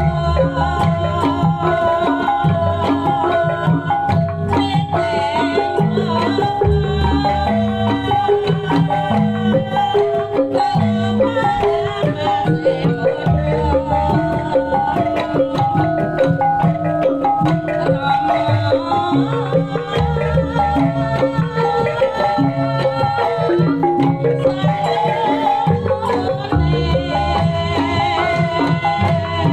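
Javanese kuda lumping music played loud over a sound system, with hand drums driving the rhythm under a repeating melody, continuing without a break.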